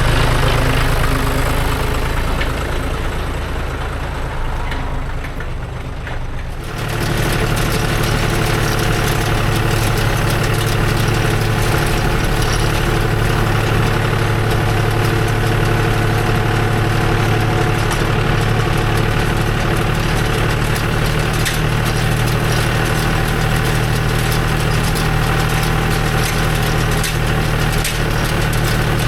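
Farm tractor engine running steadily. It fades a little for a few seconds, then changes abruptly to a louder, even run about seven seconds in.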